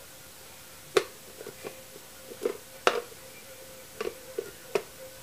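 Irregular sharp clicks and knocks of Bionicle plastic parts being handled, about nine of them, beginning about a second in.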